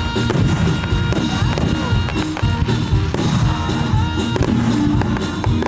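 Music with a steady beat and held tones.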